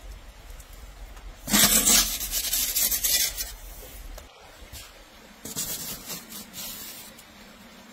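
Perforated metal pizza peel scraping across the floured floor of a wood-fired oven as a loaf of bread is slid in and off it. There are two scrapes: a loud one of about two seconds starting a second and a half in, and a softer one near the end.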